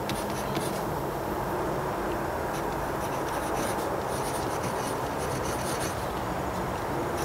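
Pencil scratching on paper in short, irregular strokes as words are written, over a steady low hum.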